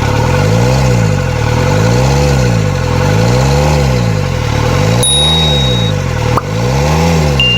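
Isuzu 4JB1 diesel engine idling unevenly, its speed rising and falling about every 1.5 s, with air still in the injector lines after an injection pump repair. Two short high beeps, about five seconds in and near the end.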